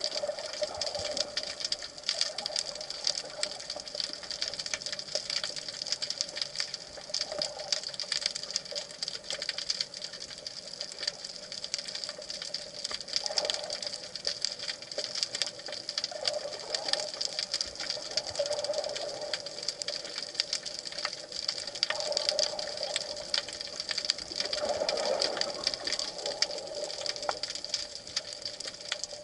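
Underwater sound picked up through a speargun-mounted camera's housing: dense, steady crackling and clicking, with a low hum that swells and fades every few seconds.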